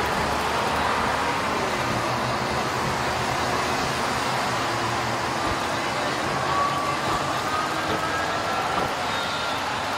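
Steady road traffic noise, a continuous rush of passing vehicles, with a faint high tone drifting slowly upward in the second half.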